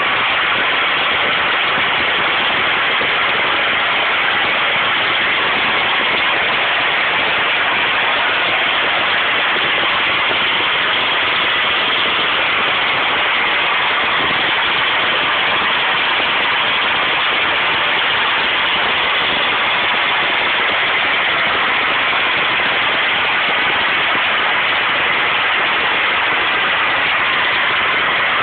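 High-pressure natural gas escaping from an uncontrolled well blowout (an open gas fountain), making a loud, steady rushing noise that does not change.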